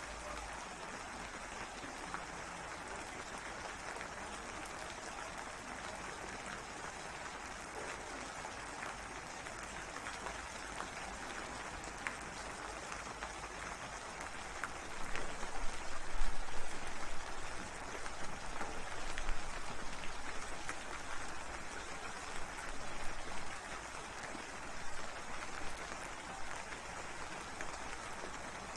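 Steady rainfall, a dense even patter. From about halfway it turns louder and uneven, with sharp surges, until a few seconds before the end.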